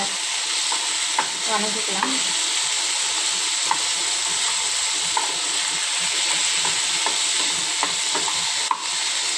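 Chopped onion, tomato and capsicum sizzling steadily in hot oil in a non-stick frying pan as they are sautéed and stirred with a wooden spatula, with occasional light clicks of the spatula against the pan.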